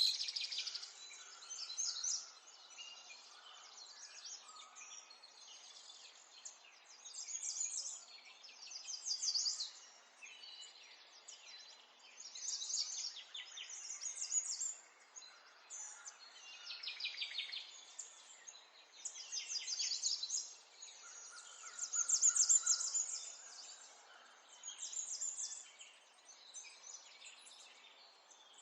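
Small songbirds singing and chirping, with phrases of rapid high trills and chirps every few seconds over a faint steady hiss.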